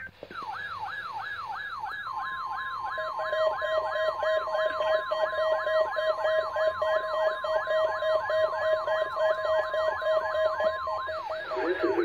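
SAME weather alert radios sounding their alarms on receiving a Required Weekly Test: a fast repeating siren sweep falling in pitch, about three to four sweeps a second, joined about two seconds in by a steady high tone and a second, lower steady tone a second later. The steady tones cut off shortly before the end while the siren keeps going.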